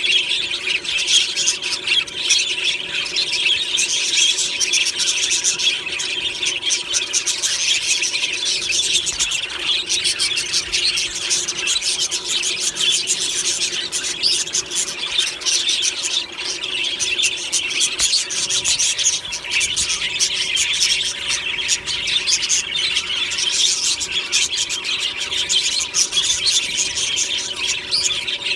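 A flock of budgerigars chattering, chirping and warbling together without pause, many birds overlapping in a dense high-pitched chatter.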